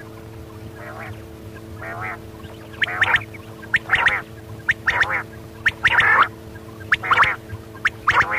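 Quail calling repeatedly: short calls about one a second, faint at first and louder from about three seconds in, over a steady low hum.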